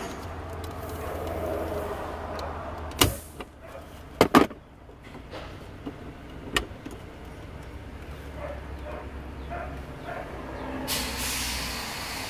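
Sharp clicks and knocks of a plastic brake-light bulb socket being twisted and pried loose with pliers and gloved fingers, four or five of them spread over the first seven seconds. A brief rustle of handling comes near the end, over a steady low hum.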